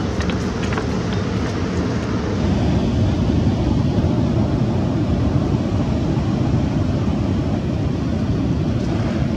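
Steady low rush of fast-flowing river water, a little louder from about two seconds in.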